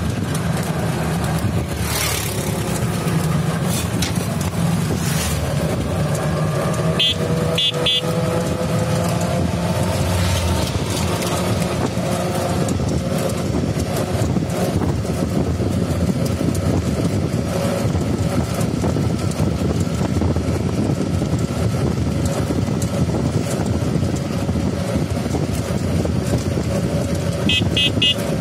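Steady road and wind noise of an open-sided passenger vehicle driving along a road, its motor running underneath. Two short bursts of rapid high beeping, about a quarter of the way in and again near the end.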